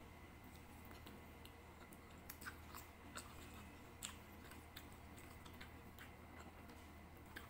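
Faint close-up chewing of chicken and rice, with scattered small wet clicks, the strongest between about two and four seconds in, over a low steady hum.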